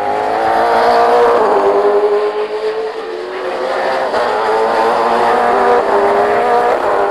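V8 Supercar racing engines running hard, the pitch climbing and dropping back repeatedly as the cars rev up and change gear.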